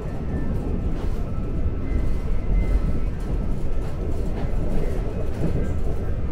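Interior of a Seoul Line 2 subway car running at speed: a steady low rumble of wheels on rail, with a faint high steady whine from the traction motors.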